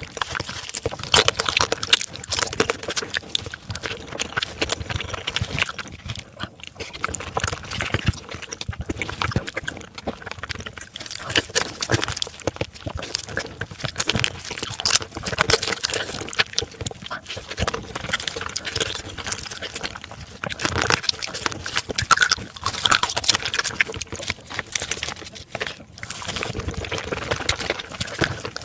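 Close-miked eating of marinated raw crab: continuous wet slurping, sucking and chewing, with many small sharp clicks throughout.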